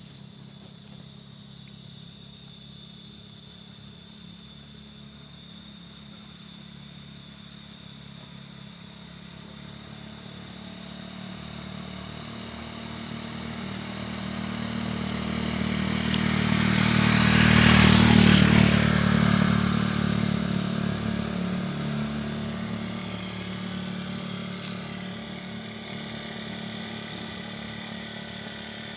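A motor vehicle's engine that grows louder to a peak about eighteen seconds in and then fades again as it passes. A steady high-pitched whine runs beneath it throughout.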